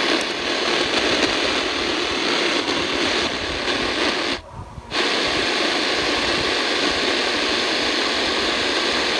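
AM static hissing from a V115 portable AM/FM/SW radio's speaker, with no station coming through. It cuts out for about half a second midway as the radio retunes to 1674 kHz, then the static comes back steady.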